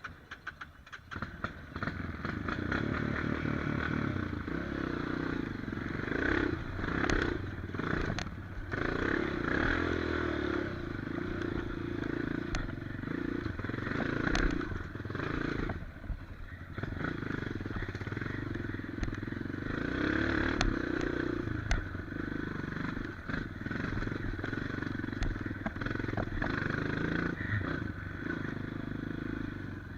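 Dirt bike engine running and revving up and down, with scattered sharp knocks and clatter. The engine comes up strongly about a second in.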